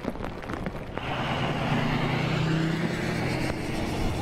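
Rain falling for about a second, then a pickup truck driving through shallow floodwater on a road: the engine runs steadily while the tyres throw up a continuous hissing spray.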